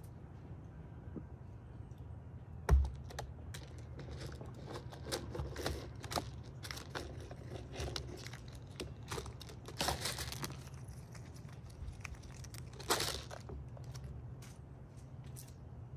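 A gray squirrel drops onto a feeder tray with one sharp thump, then feeds: a run of quick clicks, scratches and crackling crunches as its claws scrabble on the tray and it handles seeds and peanuts.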